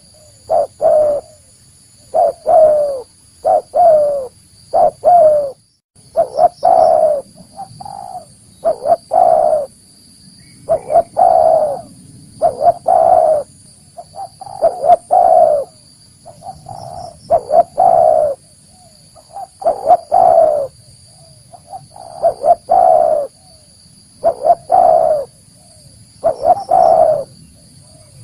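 Spotted dove cooing: loud, repeated multi-note coo phrases, about one every two seconds.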